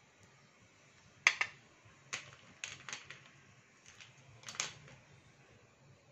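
Slate pencil being scraped with a small metal blade: a few short, sharp scrapes and clicks, the loudest pair about a second in. Just after four seconds in, slate pencils clack together in a glass bowl as one is handled.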